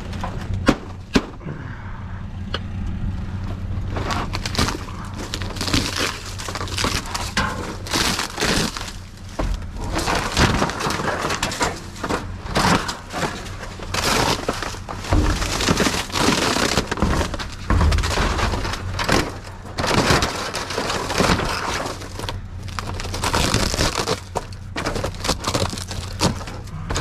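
Junk being rummaged through and moved about in a dumpster: irregular knocks and clatter of debris, over a steady low hum.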